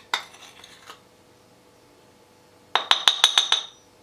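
A metal spoon clinking against a mixing bowl as icing sugar is spooned in: a few taps in the first second, then a quick run of about eight ringing clinks near the end.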